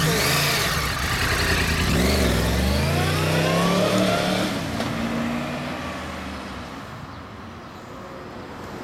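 Yamaha YZF-R1 (RN24J) crossplane inline-four motorcycle engine revving as the bike pulls away, its note climbing under acceleration, then fading as it rides off into the distance over the last few seconds.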